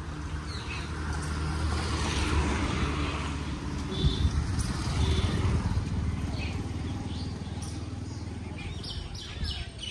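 A motor vehicle's engine going by, its hum growing louder, peaking and then fading away, while small birds chirp briefly now and then, more often near the end.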